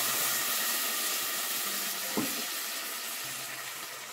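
Coconut milk poured from a can into a hot pot of fried onions and curry paste, hissing steadily and slowly fading as the pot cools. A single light knock about two seconds in.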